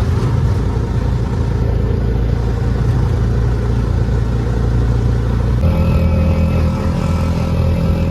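A motor vehicle's engine and road noise during a drive, heard steadily. About two-thirds of the way through the sound changes abruptly, and a steady higher whine joins the engine hum.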